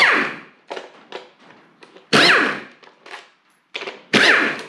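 Cordless impact driver undoing bolts on the front cover of a Toyota 1UZ-FE V8, in three short bursts about two seconds apart, each ending in a falling whine as the motor spins down. Small clicks of tool and metal in between.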